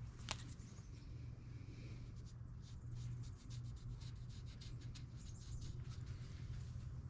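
Sharpie marker drawn in short, scratchy strokes around a stainless steel exhaust pipe, marking a cut line, over a steady low hum.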